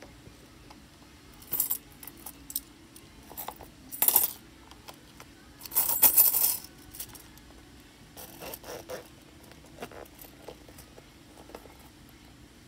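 Coins clinking and jingling inside a small clear holographic vinyl zip pouch as it is handled, in several short bursts with scattered clicks between them. The loudest and longest burst comes about six seconds in.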